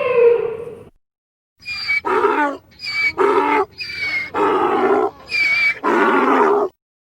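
An animal calling: five repeated two-part cries, each a short high note followed by a longer, lower one, like a bray. Before them, a pitched sound falls and trails off in the first second.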